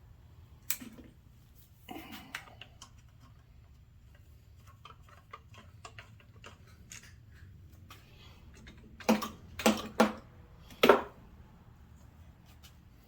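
Hand tools and small metal parts clicking and knocking while a carburetor is taken off a small engine: scattered light clicks, then four louder knocks close together near the end.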